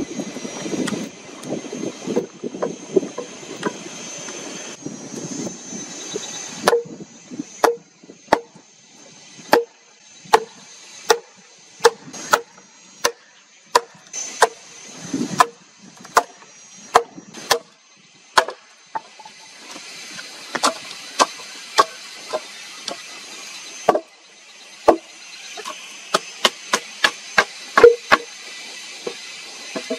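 Wood being struck again and again, typical of an axe chopping: sharp blows about one to two a second, each with a short ring, coming in runs with brief pauses. It begins with several seconds of rough, rhythmic rasping.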